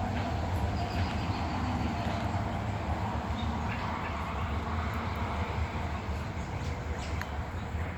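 A steady low hum, with a few faint bird chirps and calls over it.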